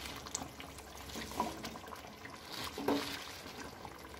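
Malabar spinach leaves and stalks dropped by the handful into a pan of simmering curry: soft rustling and gentle sizzling, with a couple of slightly louder moments as handfuls land.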